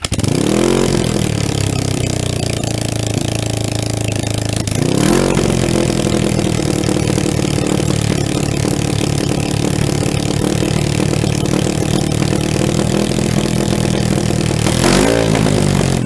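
Motorcycle engine catching on its first start after its ignition coils were relocated. It is revved three times: just after it catches, about five seconds in, and near the end. Between the revs it runs at a fast idle, because the idle was set too high by accident.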